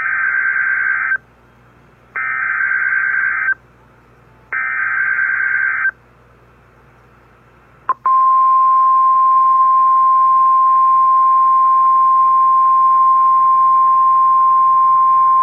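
Weather radio emergency alert signal: three bursts of warbling SAME digital header data, each about a second long with a second's gap between them, then a click and the steady 1050 Hz warning alarm tone starting about eight seconds in. This signals that a new severe-weather warning is about to be broadcast.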